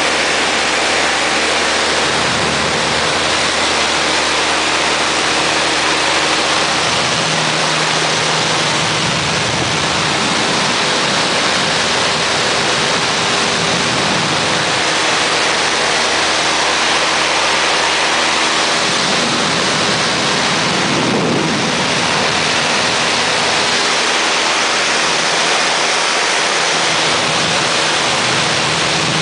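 Light airplane's engine and propeller running steadily, heard from inside the cabin with the rush of wind: a loud, even hiss over a low hum.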